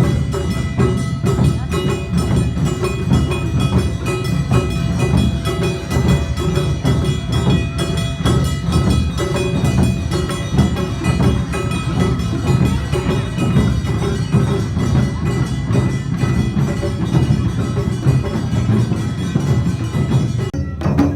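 Awa odori festival band playing: taiko drums beating steadily under ringing metallic percussion. Near the end it cuts abruptly to sparser drum strokes.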